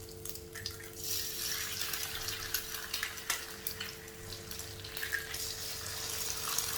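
Eggs poured into hot ghee in a frying pan and sizzling. The hiss starts about a second in and holds steady, with a few light clicks from the utensils.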